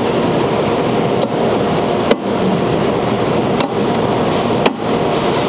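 Steady machine noise with four sharp metallic clicks spread across it, as the pressure arms over a wire feeder's drive rollers are snapped down and clamped.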